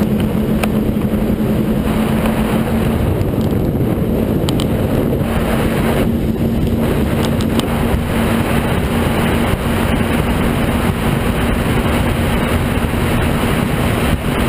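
A 39-foot Outerlimits powerboat running at speed: a steady engine drone under wind rushing over the microphone and water rushing past the hull.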